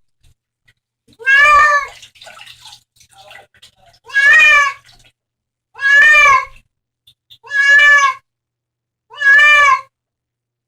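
A cat meowing loudly over and over: five drawn-out meows of about half a second each, evenly spaced about a second and a half apart.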